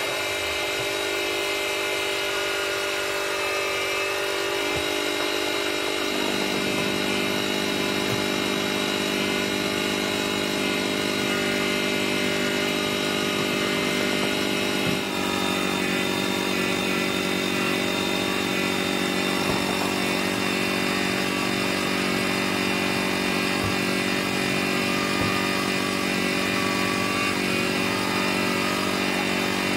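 Motor-driven cloth buffing wheel running steadily as a plastic headlight lens is pressed against it for polishing: a constant machine drone with many fixed tones. A lower hum joins about six seconds in.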